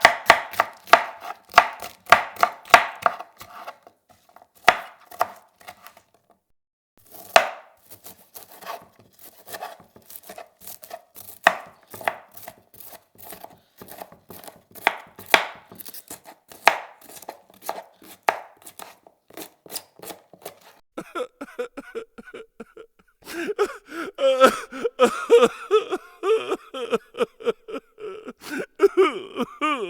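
Knife chopping vegetables on a cutting board: a long series of sharp chops, fast at first, then sparser with short pauses, and a quicker, more ringing run of chops over the last third.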